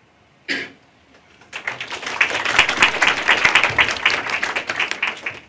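Small audience applauding for about four seconds. The clapping starts about a second and a half in and dies away near the end. A single short noise comes just before it, about half a second in.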